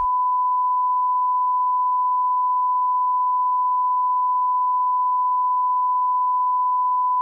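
A single steady electronic tone, like one long unbroken beep, held at one fixed pitch with no change in loudness.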